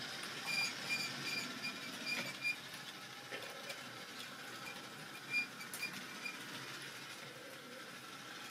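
Model railway hopper wagons rolling past on the track, their metal wheels clicking over the rail joints about two to three times a second in two runs, over a faint motor whir. The sound fades as the train moves away.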